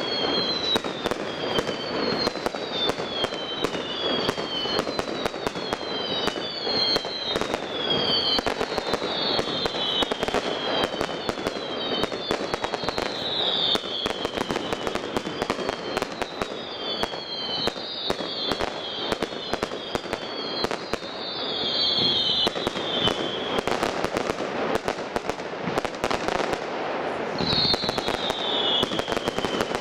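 Fireworks display: a rapid stream of bangs and crackles from aerial shells, with short falling whistles about once a second and a deeper boom near the end.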